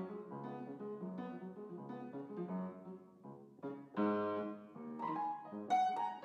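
Piano music: single notes and chords, growing louder about four seconds in.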